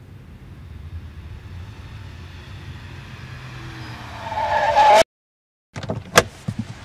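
Car sound effect: an engine running steadily, swelling to its loudest just before five seconds in and then cutting off abruptly. After a short silence come a few sharp knocks, one of them loud.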